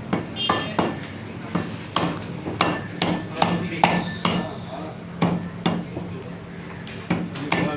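Heavy meat cleaver chopping through a rack of mutton ribs on a wooden chopping block: a run of sharp, irregular chops with a short pause near the end, over a steady low hum.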